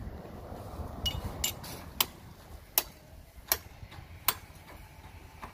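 Hand float scraping across fresh cement render, followed by a run of sharp metallic taps, about one every three-quarters of a second.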